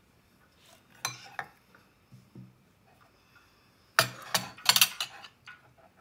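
A plate with a knife and fork on it and a small glass bowl clinking as they are picked up and handled. A couple of clinks come about a second in, then a louder quick run of clatters near the end.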